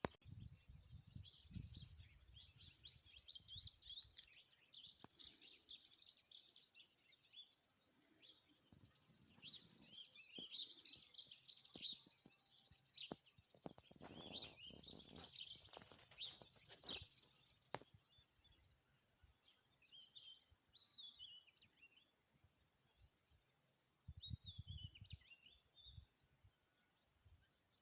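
Wild birds chirping and singing, many short high calls overlapping for the first two-thirds, then thinning to a few scattered calls. Faint, with a few low rumbles near the start and again late on.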